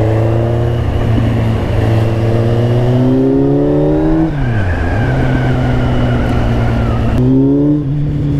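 Kawasaki Z800's inline-four engine through an Akrapovic exhaust, heard from the bike while riding. Its pitch climbs slowly under throttle, falls and comes back about four and a half seconds in, then runs on steady.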